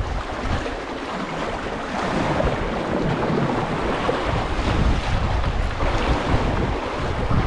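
Sea waves washing and splashing against concrete breakwater blocks, with gusty wind rumbling on the microphone.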